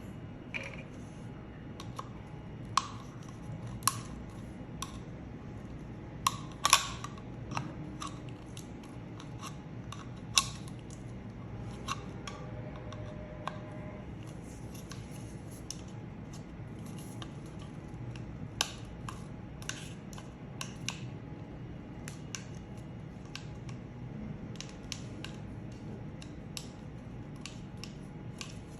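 Scattered small clicks and taps of plastic soap-dispenser parts being handled, a few of them sharper around a quarter and a third of the way in, over a steady low background hum.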